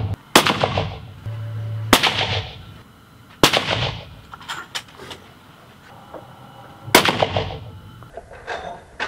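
Scoped bolt-action rifle fired four times, the first three shots about a second and a half apart and the fourth after a longer pause, each crack ringing on in an echoing indoor range. Lighter clicks come between the shots.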